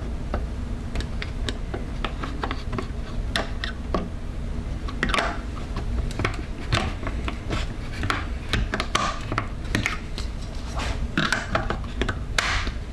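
Irregular light clicks and scrapes of objects being handled, over a steady low hum.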